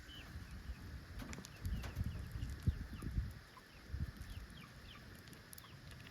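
Chickens chirping and clucking: many short, high, falling chirps scattered throughout, with a few low knocks and bumps underneath.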